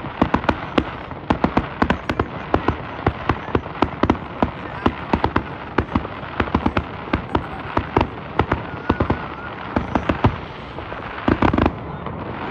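Fireworks going off: a rapid, uneven run of bangs and crackling pops, several a second, with a louder stretch near the end.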